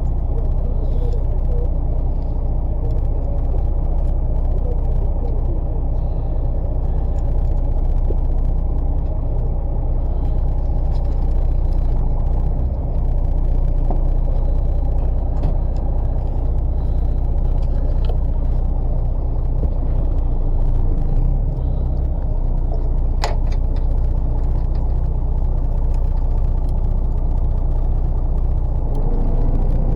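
Fishing boat's engine running with a steady low drone. A single sharp click sounds about two-thirds of the way through.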